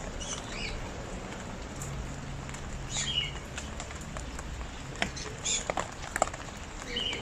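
Steady rain falling, with scattered sharp drops hitting close by. A bird gives short high chirps a few times.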